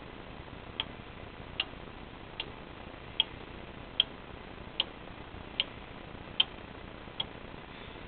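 Small PCB relays on an eight-relay Arduino control board clicking in a regular sequence: nine sharp clicks, about one every 0.8 seconds, then they stop.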